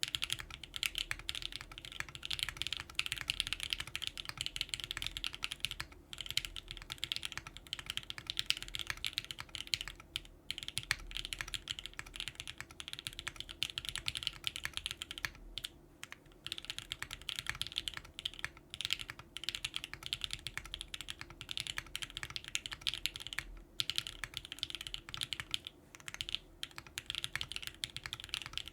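Continuous typing on a Think6.5 v2 custom mechanical keyboard with lubed and filmed JWK Moss switches, a full FR4 plate, GMK keycaps and no case or plate foam. Keystrokes run densely, broken by a few brief pauses.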